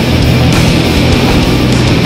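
Loud heavy rock music, dense and steady, with no break.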